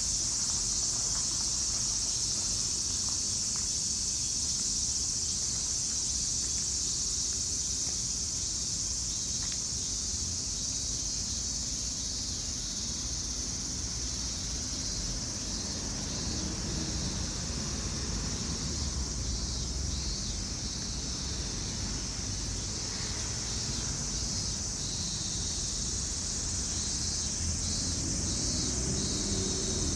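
Steady high-pitched chorus of insects that does not let up, over a low background rumble.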